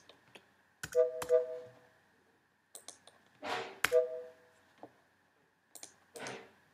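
Computer keyboard and mouse clicks on a Mac, with two of the key presses answered by a short two-note alert beep, the system's refusal sound as the delete key fails to remove the custom iTunes icon. Short breathy rushes of noise fall between the clicks.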